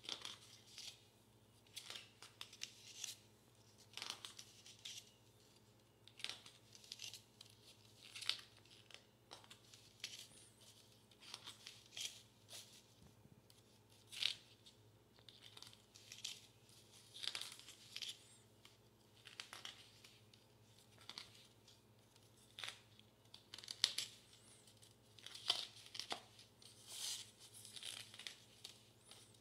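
Paper pages of a comic book being turned one after another, each turn a brief papery rustle, about one every one to two seconds, over a faint steady hum.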